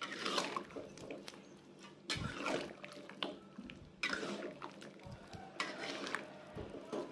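Metal spatula stirring chicken pieces through thick coconut-milk sauce in a wok: wet sloshing with scrapes of metal on the pan, in strokes about every two seconds.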